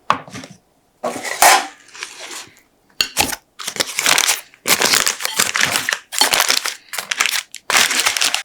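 Paper being crumpled and crinkled by hand, in a series of short crackling bursts. This is typical of parchment paper being scrunched up to line a cake tin.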